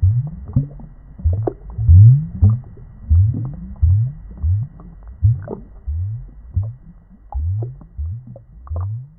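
Underwater bubbling and gurgling: a steady run of short, low bloops, about two a second, each rising in pitch, with faint clicks above them.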